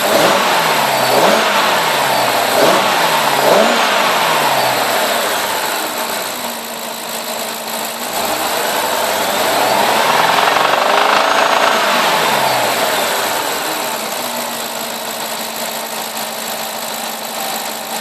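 BMW E60 550i's 4.8-litre V8 revved in four quick blips, settling to idle, then revved once more slowly up and back down to a steady idle. The owner hears a clatter from about 2500 rpm whose cause he does not know.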